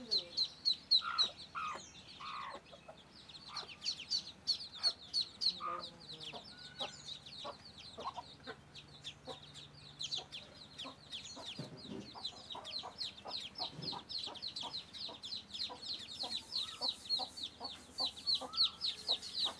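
Muscovy ducklings peeping without a break: rapid, high, short peeps, several a second, each falling in pitch. A few lower calls from an adult bird come in the first couple of seconds.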